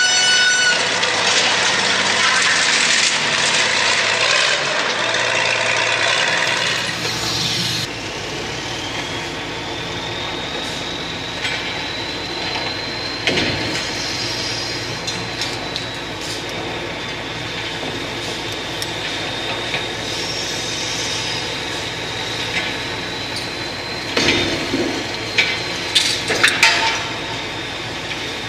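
Heavy machinery running steadily at a building demolition, louder and rougher for the first several seconds, then a steadier hum with a faint high whine. A few knocks about halfway through and a cluster of crashes and knocks near the end.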